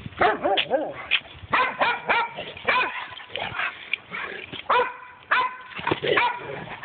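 Dogs barking and yipping during rough play: a fast, irregular string of short, high yips and barks, a few with a whining slide in pitch.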